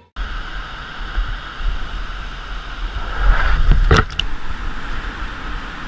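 Whitewater rapids rushing around a kayak, heard on a GoPro helmet camera with a heavy low rumble. It swells about three and a half seconds in as the bow plunges through the water, with a sharp knock just after.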